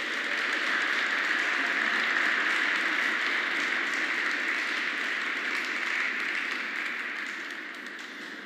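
Audience applauding after the music stops, fading away near the end.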